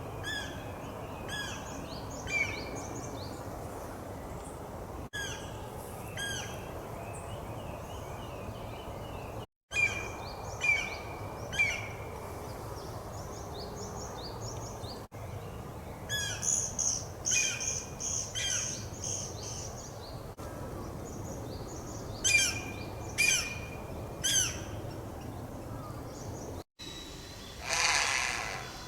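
Wild bird song and calls: short, sharp chirps and whistled phrases repeated in groups, with a run of rapid high notes in the middle.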